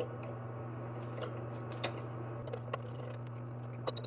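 Scattered light clicks and taps from a water supply line fitting being handled and threaded on by hand, its rubber gasket in place, over a steady low hum.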